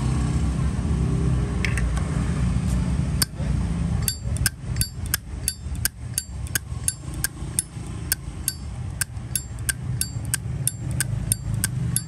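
Solid-brass Zippo lighter's hinged lid being flicked open and snapped shut over and over, from about three seconds in: sharp metallic clicks with a bright ring, about three a second, over a low steady rumble of traffic.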